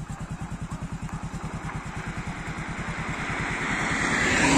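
Motorcycle engine running at a steady cruise with an even, rapid low pulsing while riding on the road. A rush of noise swells over the second half and peaks near the end.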